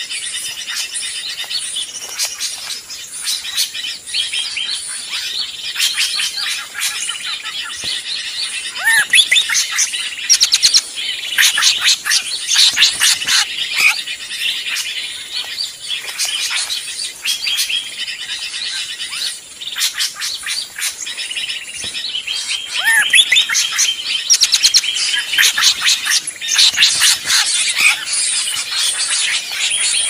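Noisy, agitated chorus of bird calls from a bird-lure recording built around drongo (srigunting) calls: rapid chirps, clicks and short rising whistles, with louder flurries about a third of the way in and again near the end.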